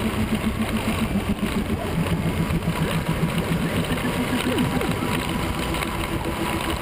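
Motorcycle engine running at road speed under steady wind noise on a bike-mounted camera, its note pulsing evenly.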